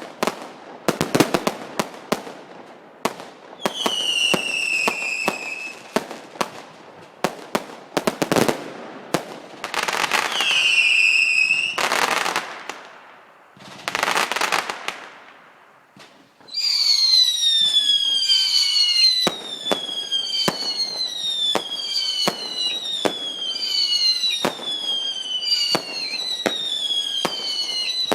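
Fireworks going off: sharp bangs and crackling reports, broken twice by shrill whistles. After a short lull past the middle, a fast run of overlapping whistles, each falling in pitch, keeps going with bangs among them.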